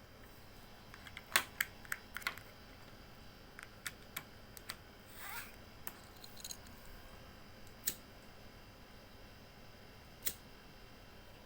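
Scattered sharp light clicks and taps, about a dozen spread unevenly, with a brief rising scrape about five seconds in, over a faint steady hiss.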